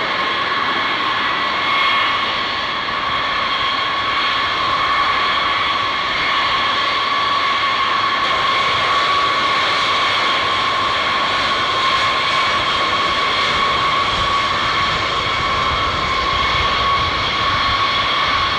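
Jet engines of B-52H Stratofortress bombers taxiing: eight Pratt & Whitney TF33 turbofans per aircraft running with a steady high whine over a rushing noise. A deeper rumble joins about three-quarters of the way through.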